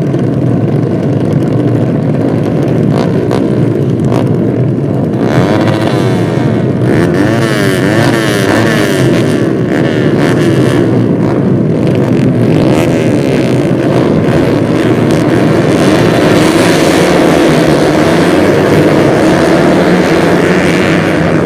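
A pack of small underbone racing motorcycles running together, many engines revving at once with overlapping rises and falls in pitch. Near the end the sound settles into a steadier high-revving drone.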